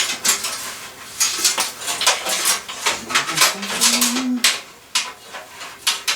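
Computer parts and cables being handled in a PC case: a quick, irregular run of clicks, taps and rattles. A faint low, wavering pitched sound rises and falls for about two seconds midway through.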